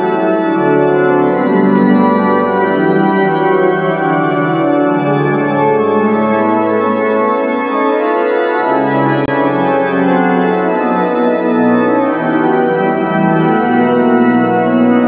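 Church pipe organ playing full, sustained chords over a moving bass line: the organ postlude at the close of Mass.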